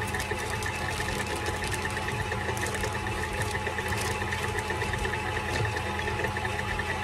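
KitchenAid stand mixer running steadily on a fast setting, its motor humming as the beater whips butter and cream cheese for frosting. Faint crinkles of a plastic powdered-sugar bag being handled come and go over it.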